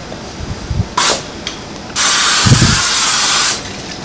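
PAM cooking spray aerosol can spraying onto a griddle: a short hiss about a second in, then a longer, louder hiss lasting about a second and a half.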